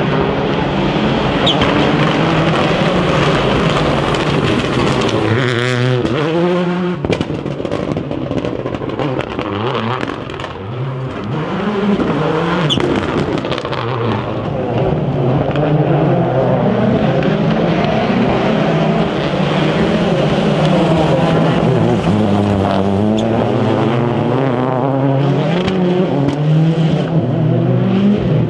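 Rally cars driven hard: engines revving up and dropping back again and again through gear changes as the cars accelerate and pass, with occasional sharp cracks.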